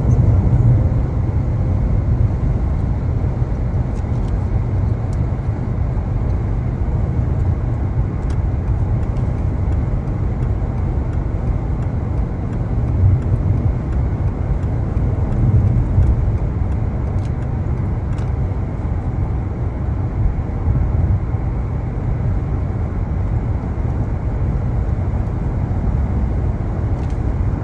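Road and tyre noise inside the cabin of a Subaru Solterra electric SUV at about 73 mph, a steady low rumble. Under it runs the tapping bang that appears only at highway speed, which the owner takes for something loose flapping against the underside of the car, probably on the driver's side.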